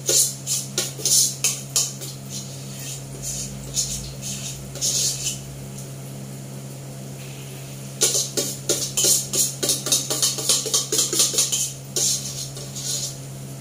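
Metal spoon scraping and clinking against a stainless steel pot in quick runs of clicks, during the first two seconds and again from about eight to twelve seconds in, over a steady low hum.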